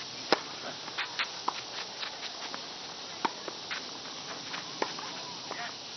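Tennis serve: a sharp crack of racket strings hitting the ball about a third of a second in, followed by fainter scattered clicks of the ball and racket as the point is played, over a steady background hiss.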